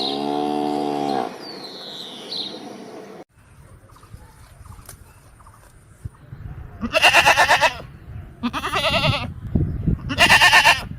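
Goats bleating: three loud, quavering bleats in the second half, each under a second long. A lower, steadier animal call sounds in the first second.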